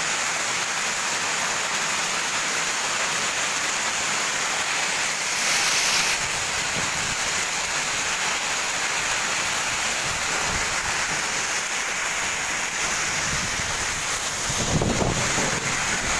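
Hailstorm: heavy rain and hail falling in a dense, steady hiss, which swells briefly about five seconds in. Gusts of wind buffet the microphone near the end.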